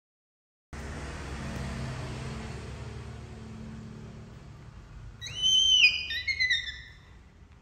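A high-pitched whistle-like call about five seconds in: a held note, then a few short notes stepping down in pitch, over a steady background hiss and hum.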